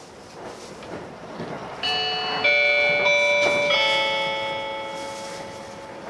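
Onboard announcement chime of a JR East E353 series limited express: a short four-note bell-like melody, the last note ringing and fading, over the train's running noise inside the passenger car. It signals that an announcement is about to follow.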